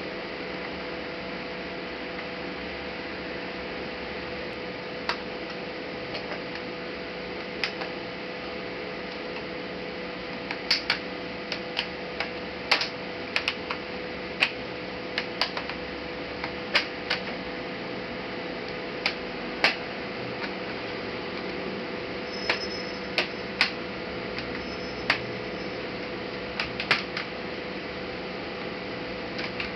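Scattered sharp clicks and taps of tools and plastic laptop parts being handled during disassembly, coming thickest in the middle, over a steady hiss and hum.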